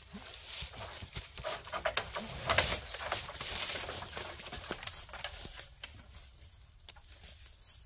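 Dry fallen leaves and twigs crackling and rustling under a person's feet and hands, an irregular run of crunches and snaps. It is loudest about two and a half seconds in and thins out near the end.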